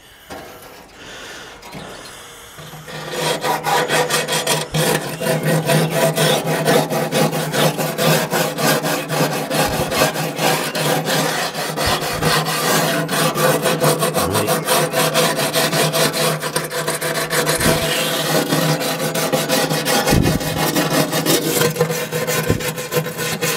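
Hand-held wire wheel brush scrubbed back and forth against the greasy, rusted steel firebox of a gas grill, a rapid run of scratching strokes that starts about three seconds in. The wire is scouring off caked grease loosened by degreaser.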